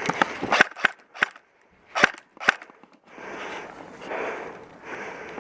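Airsoft guns firing: a string of sharp, irregular pops, about eight in the first two and a half seconds. A scuffing, rustling noise follows in slow swells.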